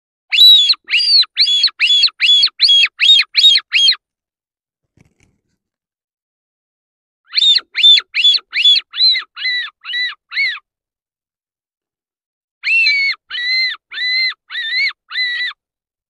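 Electronic predator caller playing a prey distress call, meant to sound like a rabbit caught in a trap: three series of loud, rapid squealing cries, about three a second, each a short arching note, with pauses of about three seconds between series.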